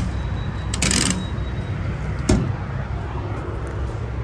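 Steady low rumble of vehicle engines around a truck stop fuel island, with a short hiss about a second in and a couple of sharp clunks, one at the start and one about two and a half seconds in.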